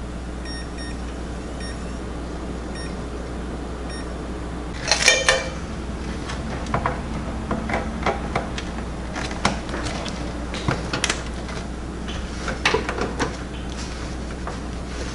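Hands working inside an open PC case: a rustling clatter about five seconds in, then scattered clicks and knocks of cables and plastic parts as a power connector is unplugged and plugged back in, over a steady low hum.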